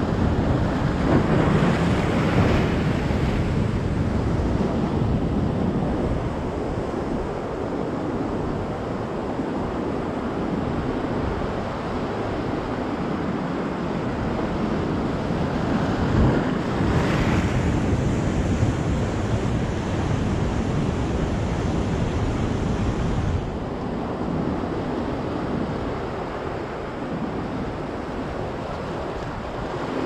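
Rough sea surf breaking and washing over rocks in a steady rush, with two louder wave surges about a second in and about sixteen seconds in.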